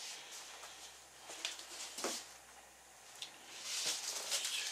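Plastic packaging crinkling and rustling as items are lifted out of a cardboard box, in short scattered spells that get busier near the end.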